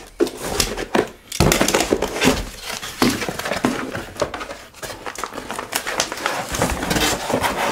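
Cardboard rustling and scraping, with irregular knocks and taps, as boxed firework batteries are shifted about and pulled out of a cardboard shipping carton.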